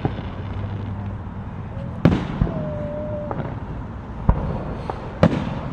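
Fireworks exploding: three sharp bangs, about two seconds in, about four seconds in and near the end, over a steady background of more fireworks going off.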